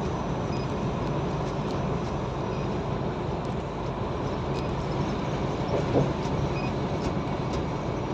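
Truck engine drone and tyre and road noise heard inside the cab while driving at speed, steady throughout.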